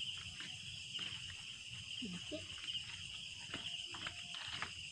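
Night insects, crickets, trilling steadily, with scattered footsteps and rustling through vegetation.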